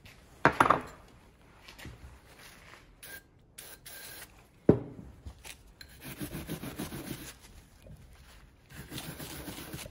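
Small hand wire brush scrubbing the metal parts of a PCV breather valve in short rapid strokes, in two runs in the second half. A brief hiss of aerosol cleaner is sprayed around three to four seconds in, and two sharp knocks of parts on the bench come about half a second in and near five seconds.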